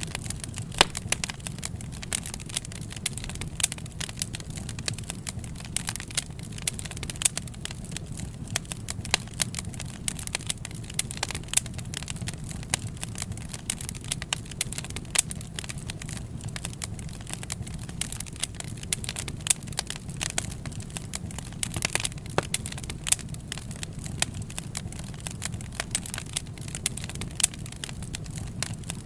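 Wood fire crackling: frequent irregular sharp pops and snaps over a steady low rumble of burning flames.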